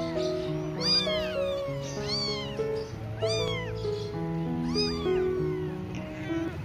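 Cat meowing: four loud calls, each rising then falling, with fainter ones after them. Background music with sustained notes plays underneath.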